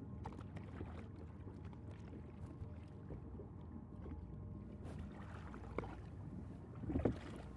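Quiet sound of a small wooden currach being rowed: oars dipping and pulling through calm sea water, with low lapping against the hull and a louder stroke about seven seconds in.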